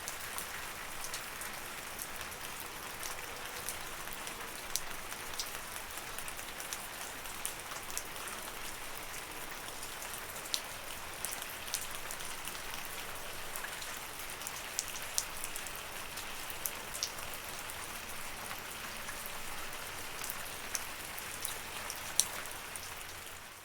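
Steady rain falling: an even hiss with many separate drops ticking sharply on a surface.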